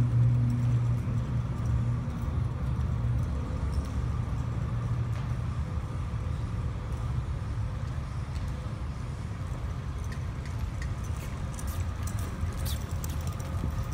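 Steady low mechanical hum, like a fan or motor running, with a few faint clicks near the end.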